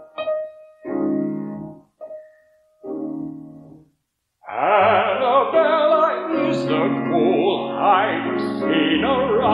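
Piano accompaniment plays a few short, detached chords, then a brief silence. About halfway through, a man starts singing in an operatic style with vibrato over the piano.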